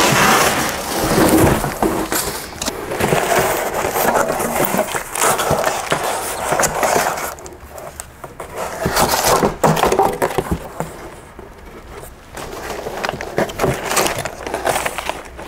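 Large cardboard shipping box being pulled open and rummaged through: flaps and inner cardboard pieces scraping, rustling and knocking against each other in irregular bursts.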